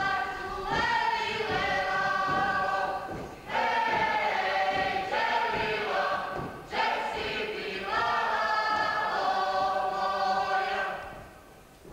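A mixed group of male and female folk dancers singing a Herzegovinian folk song in chorus with no instruments, in three long held phrases with short breaks between them. The singing stops a second before the end.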